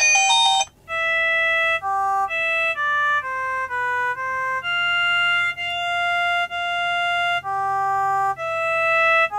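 SERVO flip phones' built-in ringtones playing through their small loudspeakers. A busy, many-note ringtone cuts off abruptly under a second in. After a brief gap comes a slow, simple synthesized melody of single held notes, one after another.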